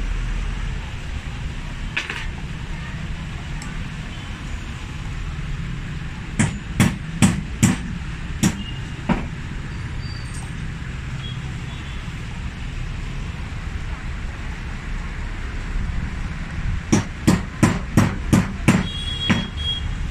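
Two quick runs of sharp, hammer-like taps, about six then about seven, over a steady background rumble, as parts of an electric water heater are worked on during repair.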